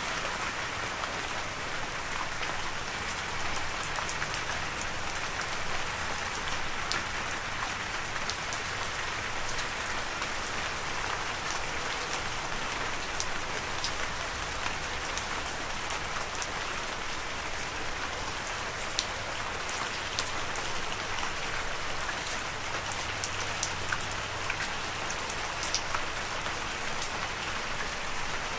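Steady rain falling: an even hiss with scattered sharp drop ticks throughout.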